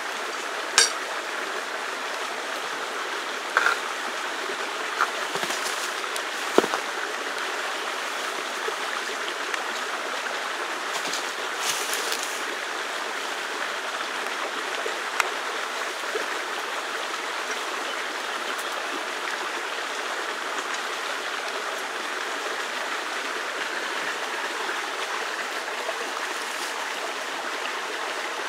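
Steady rush of flowing water, like a stream. A few sharp clicks and knocks stand out over it, about one second in, near four and seven seconds, around twelve seconds and near fifteen seconds.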